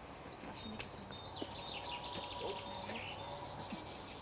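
Small birds chirping and trilling in quick, high runs, with a faint low rumble underneath.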